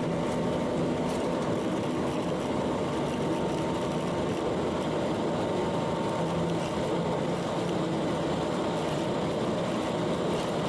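Boeing 737 flight-deck noise as the jet rolls along the runway: a steady hum of engines and airflow, with a faint constant whine, unchanging in level.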